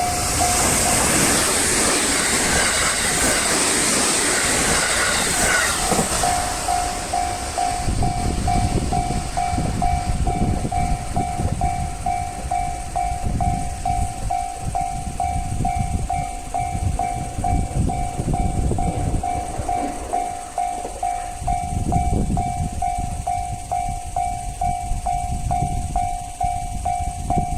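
Freight trains hauled by EF210 electric locomotives passing a Japanese level crossing. For the first six seconds the train noise is loud, with strong high hiss. After that the crossing's electronic alarm bell rings on in an even, repeating pulse over a low, surging rumble of rolling stock.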